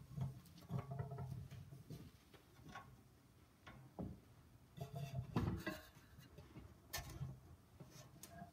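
A large wooden cross being carried and set down on the floor, with quiet shuffling footsteps and scattered knocks; the sharper knocks come in the second half.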